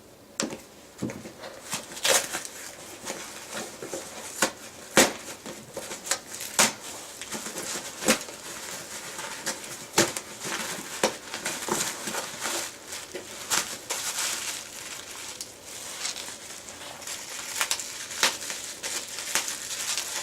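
Packaging being handled and pulled apart as a box is unpacked: a rustling noise broken by many sharp clicks and knocks.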